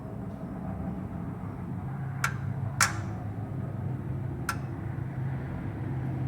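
Big-block V8 engine ticking after shutoff: three sharp, irregularly spaced ticks over a steady low hum.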